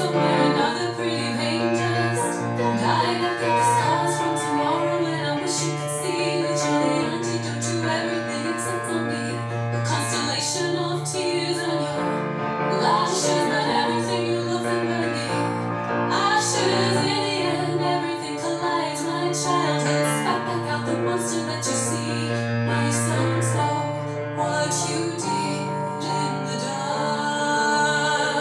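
Female vocals singing a song to grand piano accompaniment.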